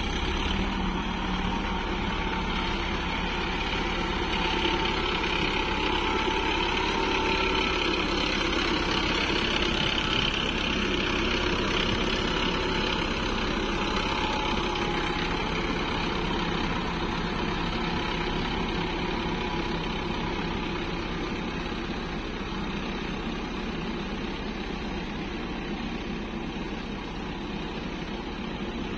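Sonalika farm tractor's diesel engine running steadily as it pulls a loaded trolley through mud, growing a little fainter near the end as it drives off.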